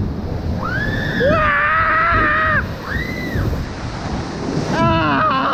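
Log flume boat rushing and splashing down the water channel, with wind buffeting the microphone. A rider gives one long, high scream about a second in and a short one soon after, and voices start up near the end.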